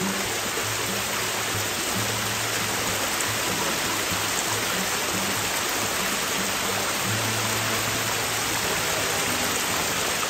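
Small woodland stream cascading over rocks and logs in a steady rush of water, with soft background music underneath.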